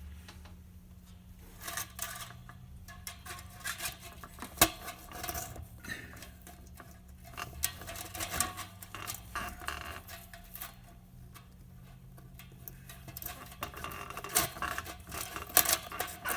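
Irregular small clicks, scrapes and rustling from handling a kiln's coiled heating element and its metal J-clips while pressing them into place in the lid, with one sharp click about four and a half seconds in.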